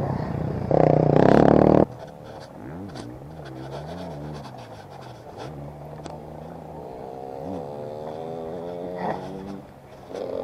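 A loud rush of noise about a second in, then a dirt bike motor whose pitch rises and falls repeatedly as it speeds up and slows.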